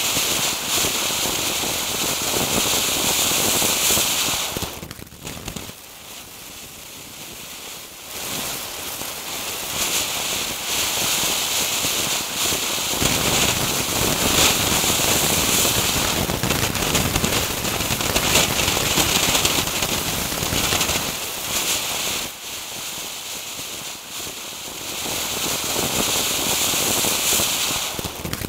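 Fireworks fountain spraying sparks: a steady rushing hiss that drops away about five seconds in, builds back up from about eight seconds, and dips again for a few seconds past twenty-two seconds.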